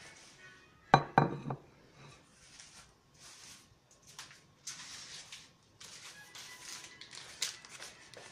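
A ceramic plate set down on a wooden table: a quick clatter of about three knocks about a second in. Then a few seconds of soft rustling as the plastic snack packet is handled.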